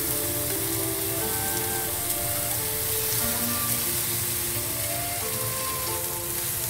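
Beef fillet steaks searing on a hot oiled grill pan: a steady sizzle as the meat fries, with background music playing over it.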